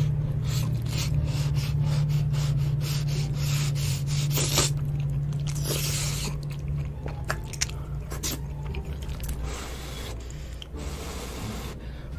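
Close-miked eating sounds of a person chewing noodles: many quick, wet mouth clicks and smacks, with a steady low hum underneath.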